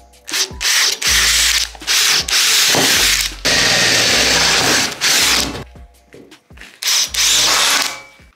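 Cordless drill with a twist bit boring holes through aluminium sheet, running in several bursts of a second or so with short pauses between them.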